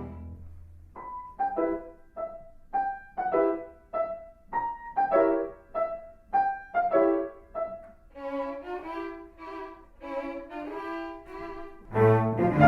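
Instrumental background music with strings and piano. A sparse melody of single notes with sharp starts is followed by a softer run of short repeated notes, and a louder, fuller passage with low strings comes in near the end.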